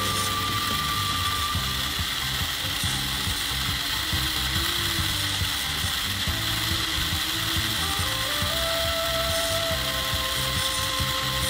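Small DC motor spinning the spur-gear reduction and drive shafts of a homemade cardboard RC truck, a steady gear whir with ratchety chatter, under background music.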